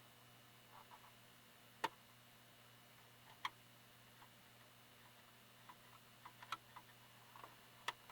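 Near silence with a low hum, broken by a few small sharp clicks and taps from handling the cassette radio's plastic parts: two single ticks about two and three and a half seconds in, then a quick run of lighter clicks near the end.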